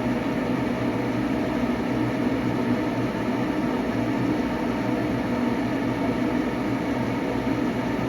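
Nordyne gas furnace running with its burners lit and the draft inducer motor going: a steady hum and rush. The flame is staying lit on a newly replaced control board.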